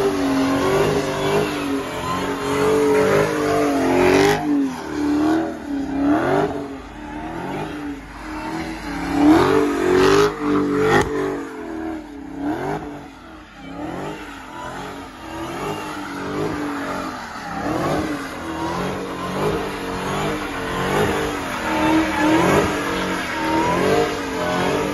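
Dodge Charger V8 doing donuts. The engine revs rise and fall over and over, about once a second, under wheelspin, with a few sharp cracks about a third of the way in.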